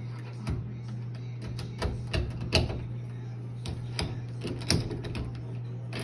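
Metal parts of a new door knob set clicking and knocking as the two knob halves are fitted through the door latch, in irregular sharp clicks. A steady low hum runs underneath.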